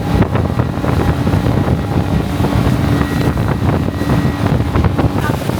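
Motorboat engine running steadily as the boat moves, with wind buffeting the microphone.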